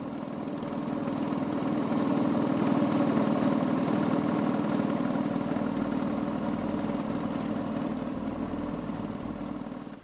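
An engine running steadily at an even pitch, fading in over the first couple of seconds and dropping away at the end.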